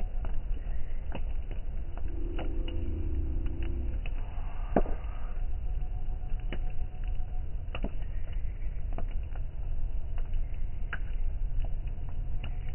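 Beach bonfire crackling: scattered sharp pops and snaps, irregular and a few per second, over a steady low rumble.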